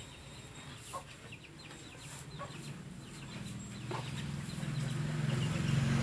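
Chickens clucking and chirping in short calls. From about halfway through, a low motor hum grows steadily louder.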